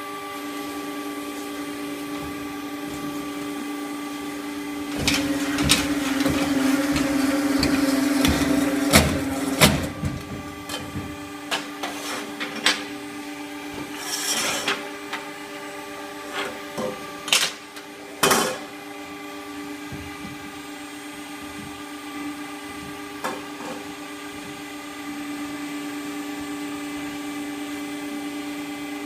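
Hydraulic gorelocker elbow-forming machine running: a steady motor hum throughout. About five seconds in it gets louder and rougher for a few seconds, with sharp metal clanks. Scattered knocks follow until about two-thirds of the way through, then only the hum remains.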